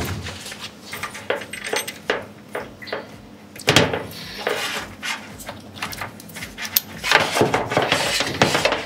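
Hands fitting a plastic weatherproof end plug onto a microinverter's AC cable connector: a run of small plastic clicks, knocks and rattles, busiest near the middle and towards the end.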